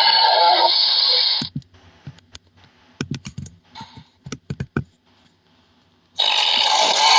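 Deep, rough dinosaur-like roar that cuts off about a second and a half in. A run of quick clicks follows, then a second roar starts near the end.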